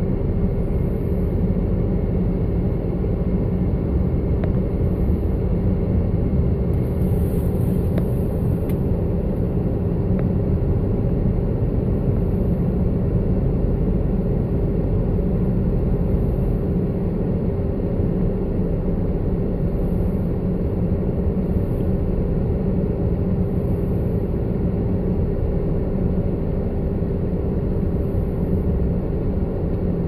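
Steady rumble of a car driving, heard from inside the cabin: engine and tyre noise with a constant hum running under it.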